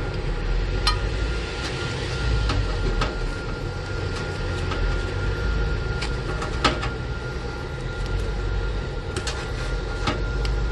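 Scattered light clicks and knocks of a PC power cable and its connector being handled and plugged in inside a computer case, over a steady low hum.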